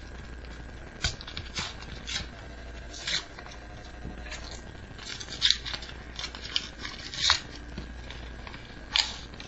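Paper crinkling and rustling as homemade paper booster packs are handled: about a dozen short, irregular crackles, the sharpest about five and seven seconds in and again near the end.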